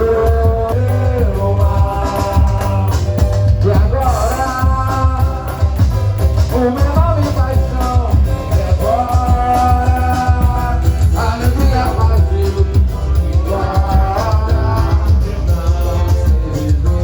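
Loud music with a heavy, steady bass and a melodic lead line.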